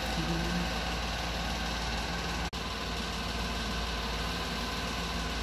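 Steady machine hum with several constant tones and a strong low rumble, broken by a split-second dropout about two and a half seconds in.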